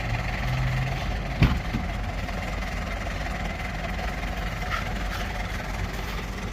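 Motor vehicle engine running steadily with a low rumble, and a single sharp knock about a second and a half in.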